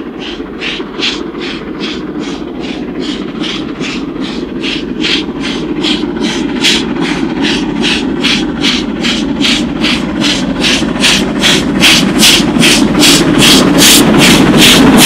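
Steam locomotive working hard with a passenger train, its exhaust beating in a sharp, even rhythm of about three chuffs a second over a rumble of wheels. The beats quicken slightly and grow steadily louder as it approaches.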